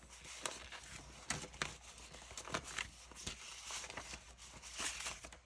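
Paper banknotes rustling as they are sorted and counted by hand, with irregular crisp snaps and flicks of the bills.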